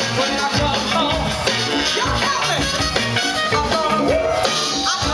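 Live soul band playing: a horn section with saxophones, electric guitars, bass and drums, with a steady beat of bass and drum pulses and melody lines from horns or voice over the top.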